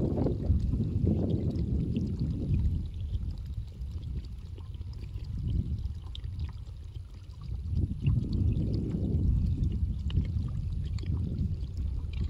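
Water gurgling and pouring out of a large blue plastic drum lying on its side, as it drains the roughly 250 litres it is filled with. It eases off in the middle and picks up again about two thirds of the way in.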